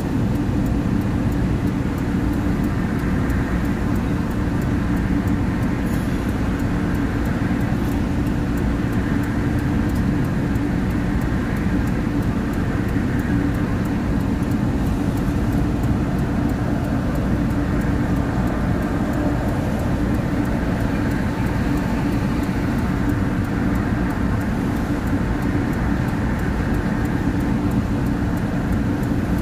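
Steady low rumble of a stationary car's cabin heard through a dashcam, with road traffic from vehicles crossing the intersection ahead swelling and fading every few seconds.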